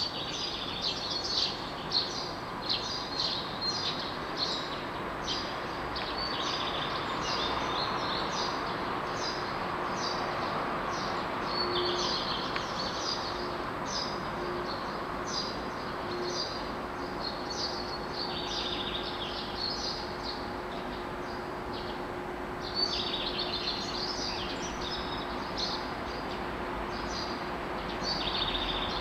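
Dawn chorus of songbirds, many short high chirps and song phrases overlapping throughout, over a steady background hum of outdoor noise.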